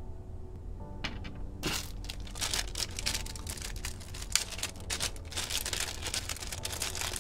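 Plastic packaging crinkling and rustling as it is handled, a dense run of crackles starting about a second and a half in.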